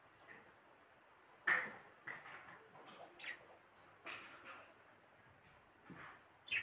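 Soft, scattered handling sounds of fingers rolling small balls of biscuit dough and setting them down on a glazed clay plate, with a sharper tap about a second and a half in. A short high chirp comes about two-thirds of the way through.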